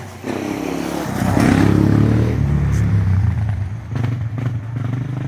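Small engine of a child's ride-on vehicle running close by. It gets louder and revs up about a second in, then runs on steadily.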